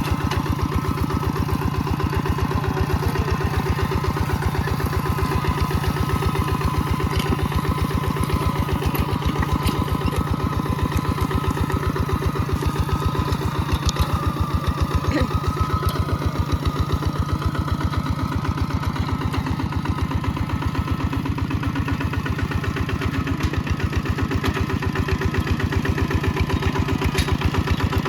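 Mini tractor's engine running steadily with a fast, even beat while it works the soil.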